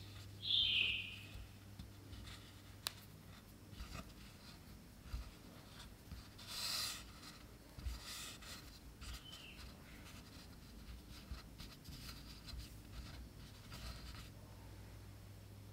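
Soft, scratchy rustling of dragon's beard candy's fine sugar threads as fingers wrap them around crushed peanuts and roll the bundle on a wooden board. There is a brief sharper scratch about a second in, a louder rustle near the middle, and a faint low hum underneath.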